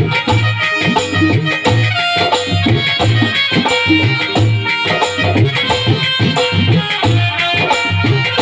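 Electronic keyboard playing a melody over a tabla-and-percussion rhythm with a steady low bass beat.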